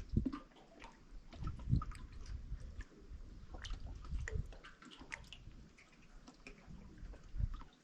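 Water lapping and dripping in small, irregular splashes and clicks, over an uneven low rumble.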